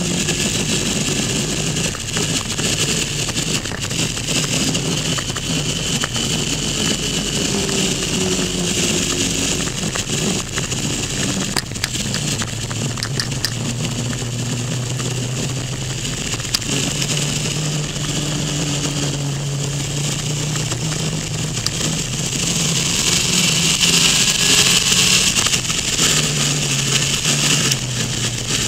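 Motorcycle engine running under way, its note rising and falling with the throttle, under heavy wind and road rush on the camera. The wind rush grows louder near the end.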